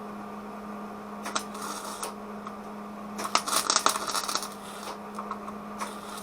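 Wire-feed welder arc crackling in three short bursts, the middle one the longest and loudest, over a steady low hum.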